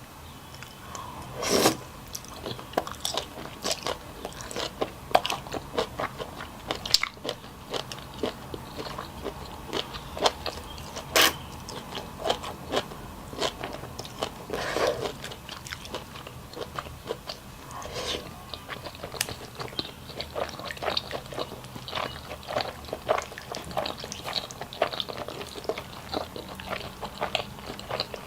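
A person eating close to the microphone: a continuous run of biting, chewing and crunching, many sharp mouth clicks with a few louder bites.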